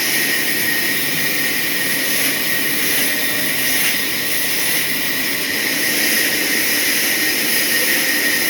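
Sawmill saw cutting a hardwood log: a loud, steady hiss with a constant high whine.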